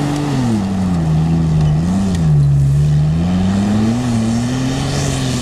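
SUV engine straining at full throttle up a steep dry-sand climb, the revs sagging early and climbing back up near the end. Tyres churning loose sand add a steady hiss underneath.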